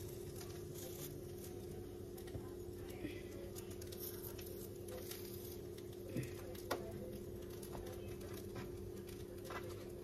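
Faint light taps and rustles of hands laying pieces of pita bread onto an electric contact grill, over a steady low hum.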